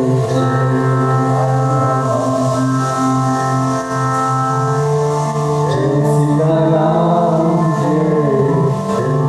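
Kirtan music: a harmonium holds a steady drone chord while a voice chants over it, the singing dropping out shortly after the start and coming back about six seconds in.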